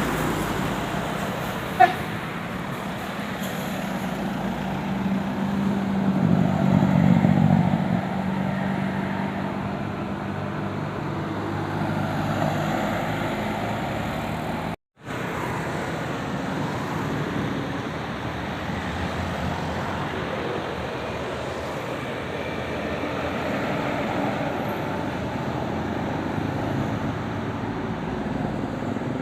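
Roadside traffic noise: vehicles driving past, with a heavy engine passing close about seven seconds in. There is a sharp click near the start, and the sound drops out for a moment about halfway through.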